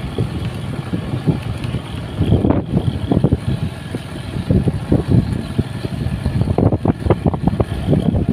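Strong cyclone wind gusting against the phone microphone, a loud, uneven rumble with sharper blasts, while banana plants and trees are tossed about.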